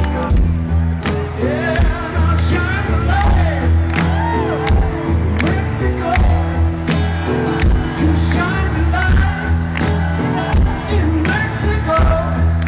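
Live rock band playing at a stadium concert, heard from amid the audience, with voices singing and the crowd shouting and whooping over the music.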